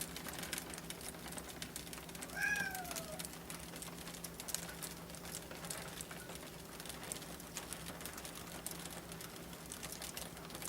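Ice pellets ticking against a window pane in a steady, fine patter, over a low steady hum. About two and a half seconds in, a cat meows once, a short call falling in pitch and the loudest sound here.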